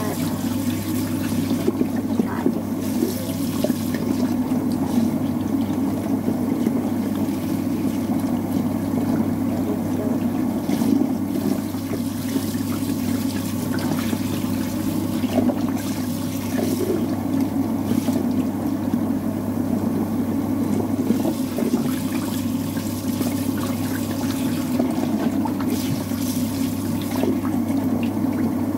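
Kitchen tap running in a steady stream, splashing over hands rubbing food clean and down into a stainless steel bowl in the sink.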